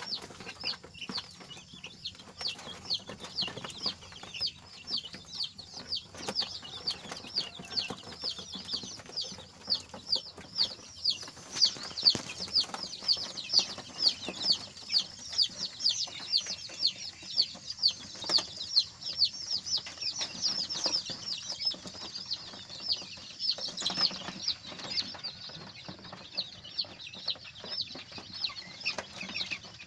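A flock of month-old Arabian chicks peeping continuously: a rapid run of short, high, downward-sliding peeps, about three or four a second. The peeps are louder for a stretch in the middle.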